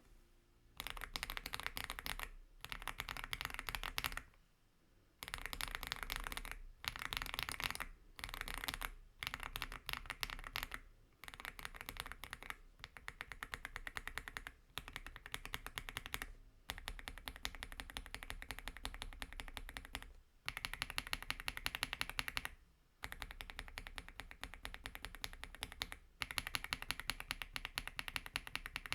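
Typing on an AULA F75 mechanical keyboard fitted with Ice Vein and Graywood V3 switches: rapid keystroke clicks in bursts of a few seconds, broken by short pauses.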